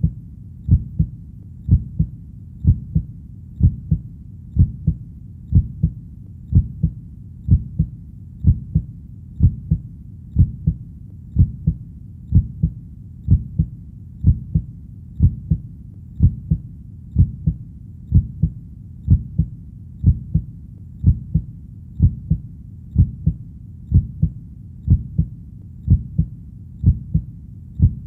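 Heartbeat sound: a steady rhythm of paired low thumps, the lub-dub of each beat, about one beat a second.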